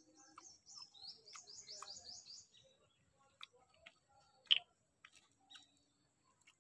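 A small bird chirping: a quick run of about ten short, rising, high-pitched notes, roughly five a second, lasting about two seconds. After it come a few faint clicks and one sharp click about four and a half seconds in.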